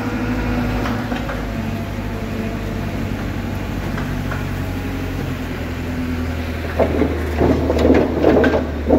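A Caterpillar 914K wheel loader's diesel engine running steadily as it moves in with its log grapple. From about seven seconds in, irregular knocking and clattering of wooden logs rises over it, louder than the engine, as the grapple closes on the load.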